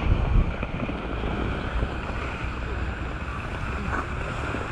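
Wind buffeting a wide-angle action camera's microphone: low rumbling gusts in the first half second, then a steady rushing hiss.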